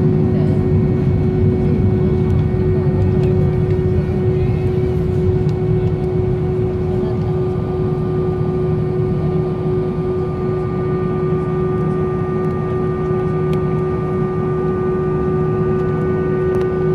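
Airbus A320 cabin noise while taxiing: a steady low engine rumble with a strong single-pitch whine and fainter higher whines above it, easing slightly after the first few seconds.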